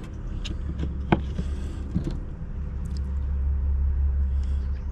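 A low rumble that swells in the second half and drops away near the end, with a few light clicks and knocks.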